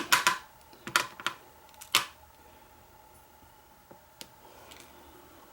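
A few sharp clicks and taps in the first two seconds, then a faint tick: small metal padlock parts (pins and springs) being handled and set down.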